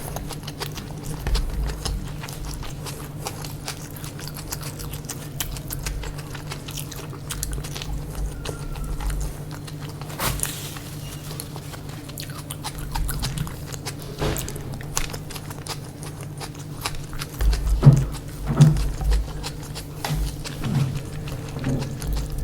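Close-miked eating sounds: a person biting and chewing chicken biryani, with many small wet clicks and smacks, busiest near the end, over a steady low hum.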